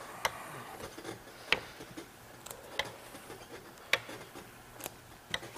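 Steel trowel burnishing nearly dry Venetian lime plaster, its blade making a series of sharp ticks about once a second as it is stroked over the firmed-up surface. This is the compressing stage that brings the plaster to a high gloss.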